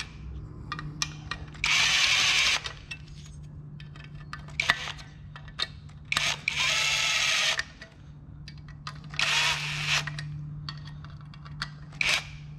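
Cordless drill-driver spinning stainless 10-32 screws in through a headlight mounting bracket, in three short runs of about a second each and a brief blip near the end. Small handling clicks come between the runs.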